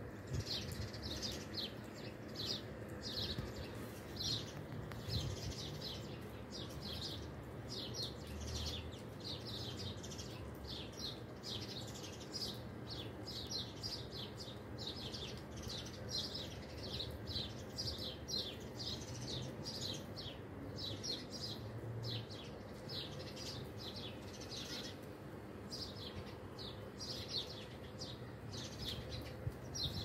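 A large flock of small songbirds perched in bare trees, chirping together in a constant stream of short, high chirps, several a second.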